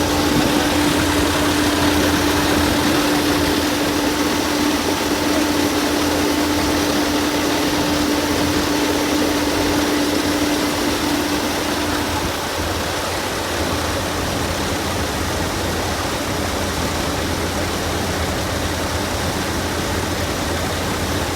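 A wheat-harvesting machine's engine running steadily, with dense mechanical noise. A held hum fades out about twelve seconds in.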